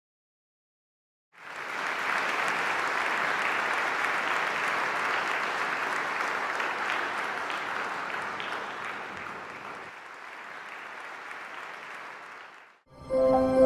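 Audience applauding after a speech: the clapping comes in about a second and a half in after a short silence, holds steady, eases off in the last few seconds and stops, and music begins just before the end.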